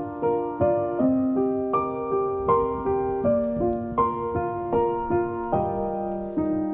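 Background music: a gentle piano melody, its notes struck about twice a second.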